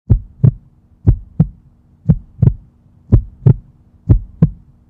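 Heartbeat sound effect: five double thumps (lub-dub), evenly spaced about one a second, over a faint steady hum.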